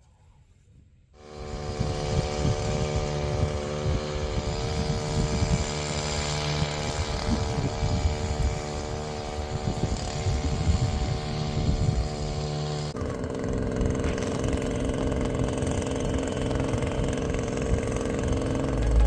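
An engine running at a steady speed that cuts in suddenly about a second in, its note shifting to a new steady pitch about 13 seconds in.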